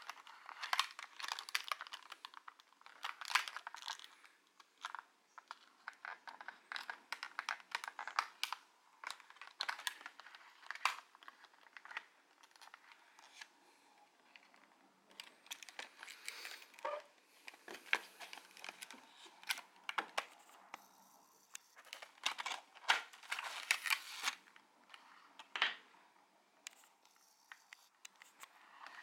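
Clear plastic blister packaging and its card backing being handled: irregular crinkling and clicking in bursts, with short quieter pauses.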